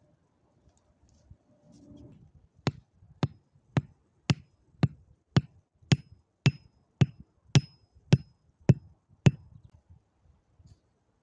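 A tent stake being hammered into the ground with the back of a hatchet: thirteen steady strikes about two a second, each with a brief ring.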